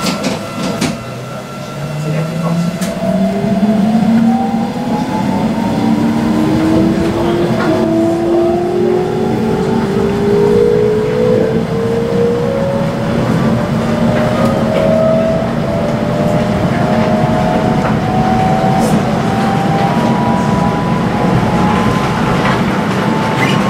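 HK100 electric multiple unit's traction motors whining as the train accelerates, several tones climbing steadily in pitch together, over the rumble of the train running on the rails.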